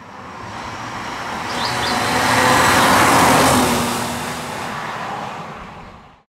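BMW E30 320i Touring with its M20 2.0-litre inline-six driving past on a wet road. Engine and tyre hiss swell as it approaches, peak about three seconds in, then die away as it leaves, cutting to silence at the very end.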